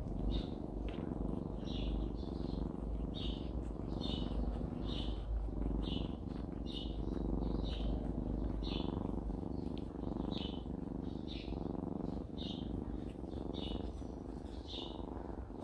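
Domestic cat purring steadily and contentedly, the mother cat's low continuous rumble picked up with the microphone pressed into her fur.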